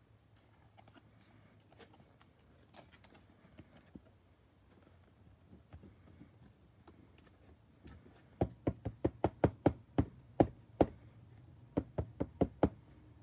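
Faint rustling of trading cards being handled, then, about eight seconds in, a quick run of sharp knocks on the tabletop, about four a second, with a short pause in the middle.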